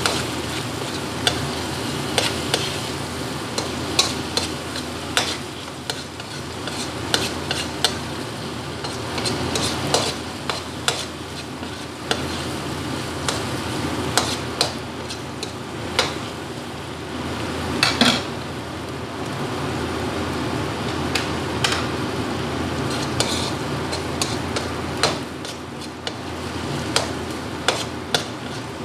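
A metal spatula stirring and clinking against a metal wok while diced meat and frozen mixed vegetables fry over a steady sizzle. Sharp clinks of the spatula on the pan come every second or so, the loudest about 18 seconds in.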